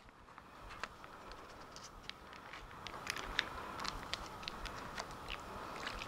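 Faint crinkling and light ticks from a plastic bag of shredded cheese being handled and shaken out over a glass baking dish of macaroni, growing a little louder toward the end.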